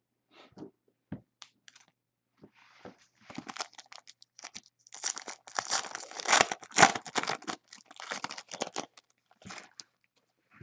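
A foil pack of basketball trading cards being torn open by hand: a few light clicks of handling, then a dense run of crackling tearing and crinkling of the foil wrapper in the middle, tapering off as the cards are pulled out.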